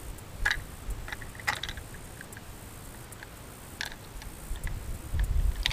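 A few sparse, light mechanical clicks, four in all, from a Tikka T3X bolt-action rifle being handled at the bench between shots, over a steady low rumble.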